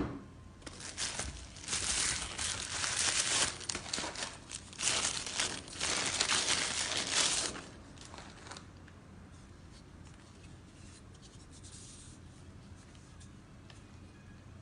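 Packaging being unwrapped by hand, crinkling and tearing in a run of noisy bursts for about eight seconds, then only faint handling sounds. A sharp click at the very start is the loudest sound.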